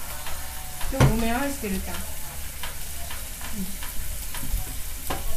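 Chicken, sausages and zucchini sizzling on an electric hot plate, a steady frying hiss. A brief vocal sound about a second in.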